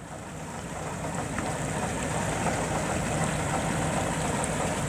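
Praga V3S truck's air-cooled six-cylinder diesel engine running under load as the log-laden truck climbs a muddy track, over a steady rushing noise. The sound builds over about the first second.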